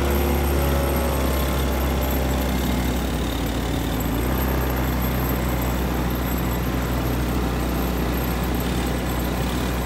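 150cc automatic ATV engine running steadily while riding along a dirt trail, a constant low drone.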